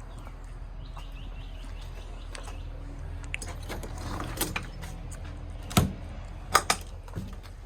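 A few sharp knocks and clacks over a low, steady rumble. The two loudest come near the end, a bit under a second apart.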